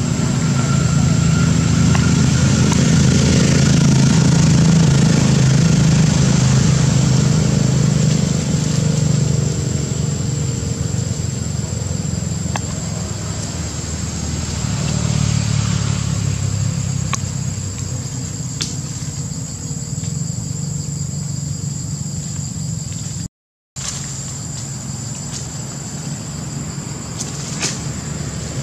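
An engine running steadily as a low hum, loudest in the first ten seconds and easing off after, with a steady high whine over it. The sound cuts out for a moment about 23 seconds in.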